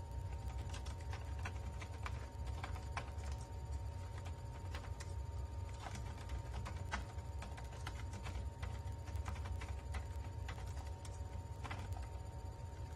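Typing on a computer keyboard: irregular key clicks, over a low steady hum.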